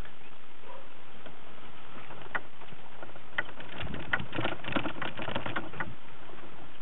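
Bicycle clicking and rattling as it is wheeled over bumpy ground, picked up through the camera mounted on the bike. A few sharp clicks come about two seconds in, then a dense, irregular run of clicks and knocks fills the second half.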